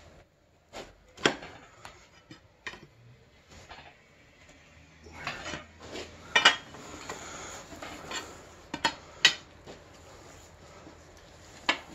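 Scattered metallic clanks and clicks as a bar on the crank bolt turns the crankshaft of a previously seized Chevy small-block V8 by hand, the engine freeing up. The loudest clank comes about halfway through, over a faint steady hum.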